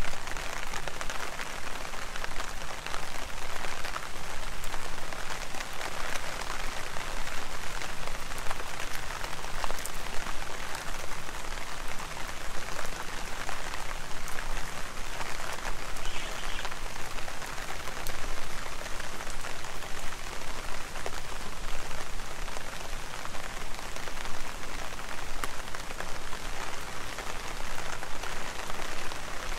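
Heavy rain falling steadily: a dense, even hiss full of small drop ticks.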